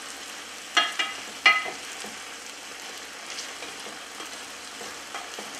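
Oily tomato sauce sizzling steadily in a frying pan while a spoon is worked through it. The spoon clinks against the pan twice, about a second in, each time with a short ring.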